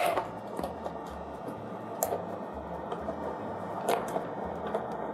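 Hard pieces of peanut brittle clicking and rattling against a clear plastic tub as they are packed in by hand, with sharp clicks at the start, about two seconds in and about four seconds in.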